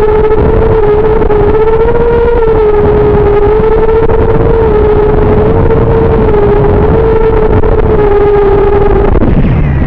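FPV racing quadcopter's brushless motors whining at a steady high pitch that wavers slightly with throttle, then falling sharply in pitch near the end as the motors spin down.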